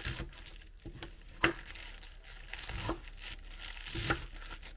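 Fresh spinach leaves being handled and torn, crinkling, with three sharp knocks about a second and a half apart, the first the loudest.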